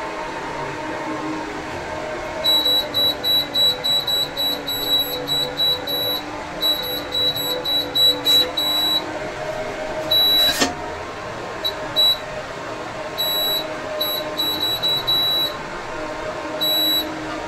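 Induction cooktop's buzzer beeping in short high pips, about three a second, in runs broken by pauses, while the pan is shifted about on the bare coil; the cooker is not sensing the pan and flashes an error code. A low steady hum runs under it, with a single click about ten seconds in.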